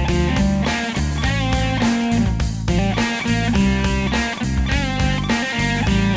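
Rock background music led by electric guitar with bass, at a steady beat.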